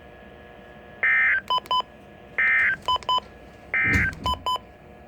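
Emergency Alert System end-of-message signal on NOAA Weather Radio: three short bursts of warbling digital data tones about a second and a half apart, each followed by a couple of short beeps, marking the end of the severe thunderstorm warning.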